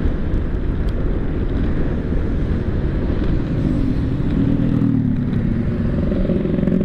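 Road noise on the move: a steady low rumble of wind and traffic, with a vehicle engine tone that rises about four seconds in and holds.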